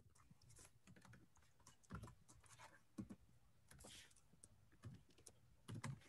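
Faint, irregular typing and clicking on a computer keyboard, with a few soft thumps.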